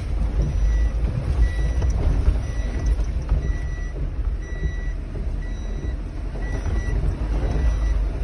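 Low rumble of a Maruti Suzuki Eeco heard from inside the cabin as it drives over a rough, muddy track. Over it, a short high electronic beep repeats about once a second.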